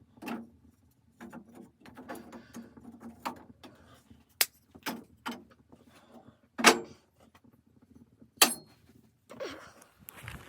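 A series of irregular clicks and knocks, with a few sharp, louder strikes; the loudest comes about two-thirds of the way in.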